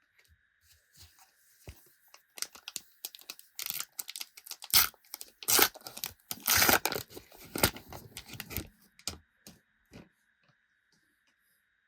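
Foil wrapper of a Panini Adrenalyn XL trading-card packet being torn open and crinkled. Irregular rips and crackles, loudest in the middle, then fading out.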